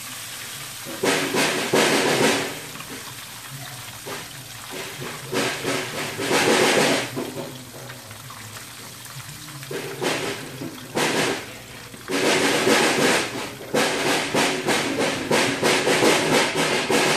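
Oil frying in a deep pan with a steady hiss, broken by loud surges of crackling sizzle as battered chicken tenders are lowered into the hot oil. The surges come one at a time at first, then in quick succession near the end.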